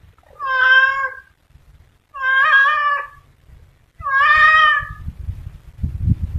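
Domestic cat meowing three times, each meow about a second long and loud, about two seconds apart. Low rumbling knocks follow near the end.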